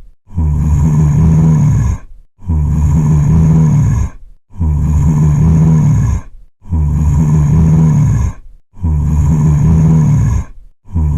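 Zombie groan sound effect: the same low, growling moan of about a second and a half, looped about every two seconds with short gaps, five times over and beginning a sixth near the end.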